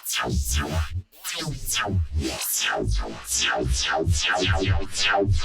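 Glitch sound synthesized from white noise in Serum and run through OTT and a glue compressor: rapid stuttering sweeps falling in pitch, about three or four a second, with a brief cut-out about a second in.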